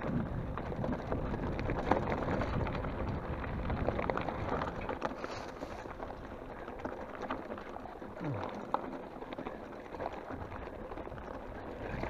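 Mountain bike riding down a rocky dirt singletrack: tyres crunching over loose gravel and stones, with the bike rattling over the bumps as a steady crackling clatter.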